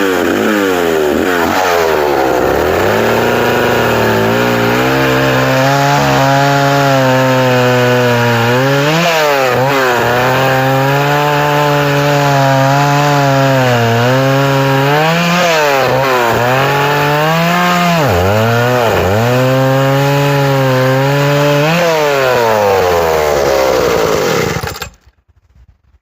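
Homelite 550, an 80cc two-stroke vintage chainsaw, running at high revs while cutting through a log, its pitch sagging under load several times and picking back up. The engine sound stops abruptly near the end.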